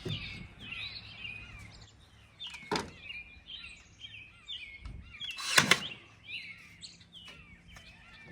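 Small songbirds chirping over and over, with two sharp knocks: one about three seconds in and a louder one a little past halfway.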